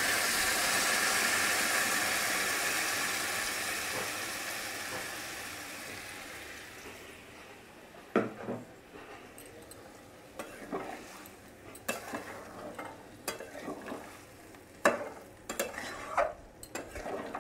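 Hot water poured into a hot pan of fried soybean chunks and potatoes sizzles loudly, the hiss dying away over about seven seconds. Then a metal spatula stirs the curry, scraping and clicking against the pan.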